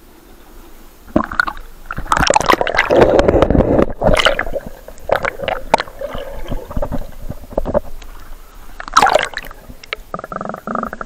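River water splashing and gurgling around a camera as it goes under, starting about a second in, then muffled underwater bubbling and clicking, with another splash near the end.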